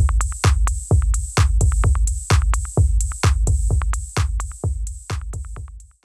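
Electronic background music with a steady drum-machine beat, fading out near the end.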